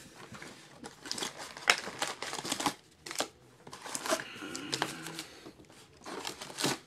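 Wrapped trading card packs crinkling and rustling as they are pulled out of a cardboard box and stacked, in several short bursts with brief pauses between.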